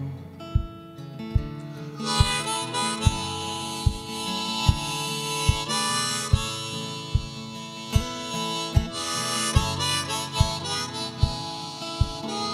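Harmonica solo over strummed acoustic guitar, the harmonica coming in about two seconds in and playing to the end. A low thump marks the beat a little more than once a second.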